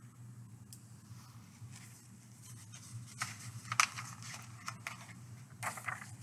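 A page of a hardcover picture book being turned, with a few soft paper swishes and light taps around the middle and again near the end, over a faint steady room hum.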